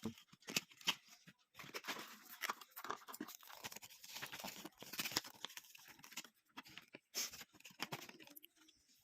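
Packaging being torn open and crinkled by hand: an irregular run of tearing, rustling and clicking that comes in spurts.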